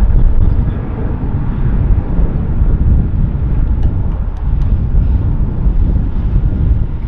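Boeing 737's twin jet engines at takeoff power as the airliner accelerates down the runway: a loud, steady low rumble.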